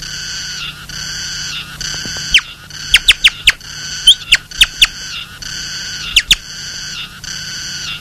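Bird chirping in quick, sharp notes that sweep downward in pitch, most of them in a cluster through the middle and a pair a little later. Under it, a cicada buzzes in regular pulses, about one a second.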